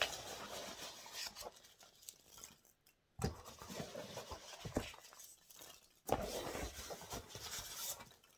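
Hands rummaging through loose packing peanuts in a shipping box: irregular rustling and scraping with small clicks, in several bouts separated by brief pauses.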